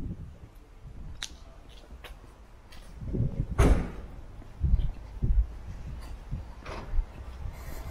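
Street ambience with a low rumble and a few scattered sharp clicks and knocks, the loudest a sharp knock about three and a half seconds in, followed by a couple of dull thumps.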